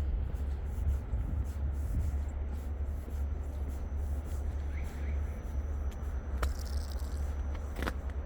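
City street ambience with a steady low rumble, and two sharp clicks near the end.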